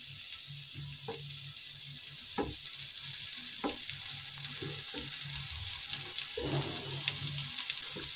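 Boiled sweet potato pieces sizzling in ghee on a hot nonstick tawa as they are laid down one by one, with a few soft taps as pieces go down. The sizzle grows slightly louder as more pieces go on.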